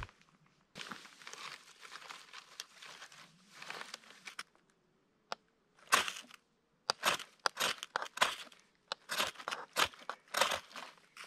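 Dry wood and brush crunching and crackling in irregular short strokes. There is a brief pause a little under halfway through, then the strokes come louder and faster, about two or three a second.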